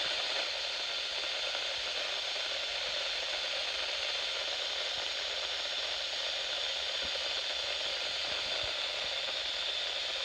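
Steady radio static hiss from a NOAA weather radio receiver carrying no programme audio, the station on dead air.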